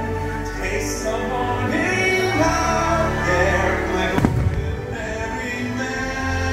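Fireworks show soundtrack playing: orchestral music with singing. About four seconds in, a single sharp firework bang cuts through it.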